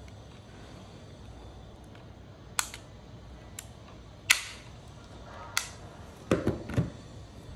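Handling of a metal airsoft V3 gearbox shell with its trigger fitted: sharp clicks about two and a half, four and five and a half seconds in, the one at four the loudest, then a quick run of duller knocks near the end.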